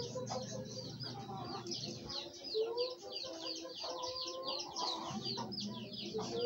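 Birds chirping: a rapid, continuous chatter of short, high, falling chirps, with a few lower, drawn-out calls.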